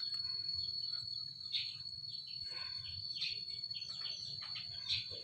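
A steady high insect trill, with short bird chirps about once a second.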